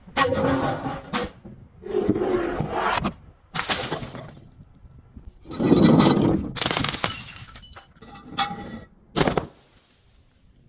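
Glass bottles breaking: a series of about six crunching, shattering breaks, the loudest about six seconds in, some followed by short ringing tones. The breaks stop shortly before the end.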